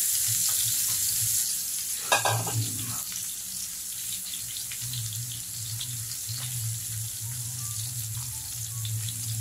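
Pork belly and eggplants sizzling in a grill pan, a steady hiss with scattered small crackles of spitting fat and one sharper crack about two seconds in. A low steady hum sounds underneath.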